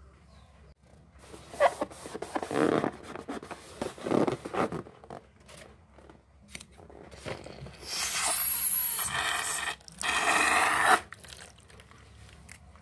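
Rubber balloons making noises: a run of short rasping squeaks, then two long, loud rasps of about two seconds and one second.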